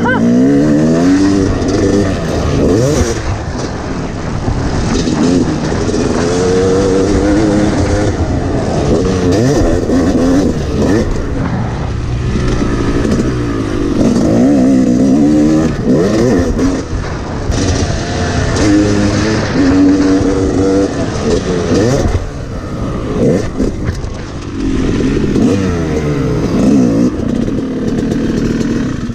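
Yamaha 250 two-stroke dirt bike engine under hard riding, its pitch climbing and dropping again and again as the rider accelerates, shifts and chops the throttle, heard close from the rider's helmet camera. Near the end it eases off as the bike slows.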